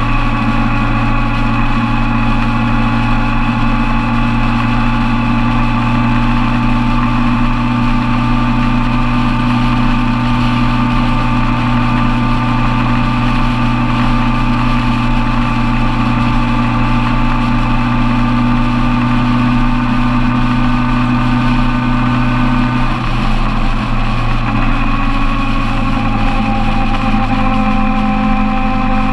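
Suzuki Bandit 1200's inline-four engine running at a steady motorway cruise. The engine note shifts slightly a little over twenty seconds in, then holds steady again.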